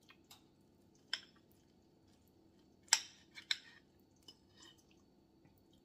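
A fork clinking and scraping on a small ceramic plate as a bite of chicken and biscuit is cut and lifted: a few sharp clinks, the loudest about three seconds in, with light scrapes between.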